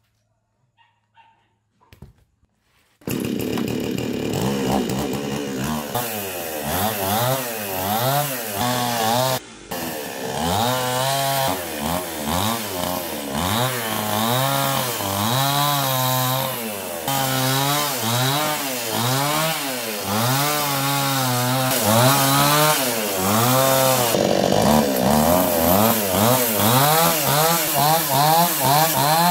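Chainsaw cutting into a driftwood log, its engine note rising and falling over and over as the chain bites into the wood and eases off. It starts about three seconds in, after near silence, and drops out briefly once about ten seconds in.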